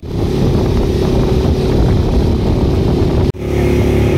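A small boat's engine running steadily under wind and water noise. The sound breaks off sharply for a moment about three seconds in, then carries on.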